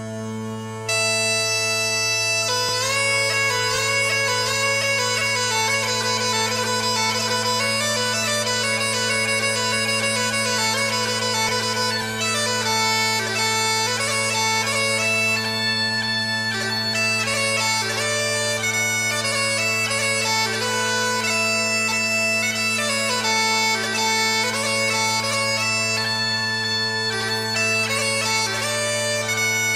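Bagpipe music: steady drones held under a chanter melody that comes in about a second in.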